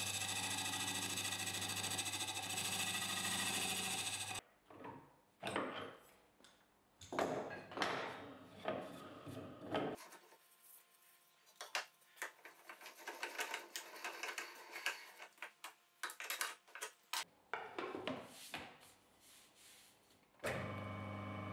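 Homemade wood lathe's electric motor running steadily while a file is held against the spinning wheel to true it to an even diameter; it cuts off about four seconds in. Scattered knocks and clicks of the wooden wheels being handled and changed on the spindle follow. Near the end the lathe motor starts running again.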